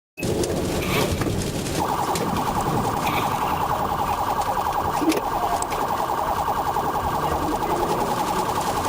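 Police car siren in a rapid warble, a fast up-and-down tone repeating several times a second, starting about two seconds in over steady road noise.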